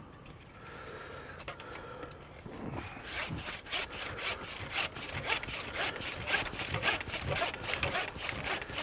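Hand saw cutting through a thin living tree stem, starting about three seconds in with quick, even back-and-forth strokes.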